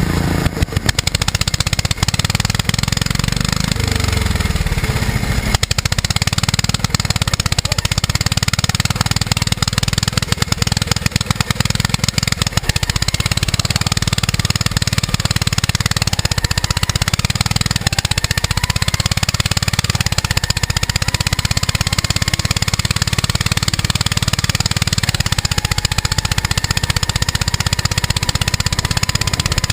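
Riding lawn mower engine running hard and loud throughout, its pitch falling about three to five seconds in.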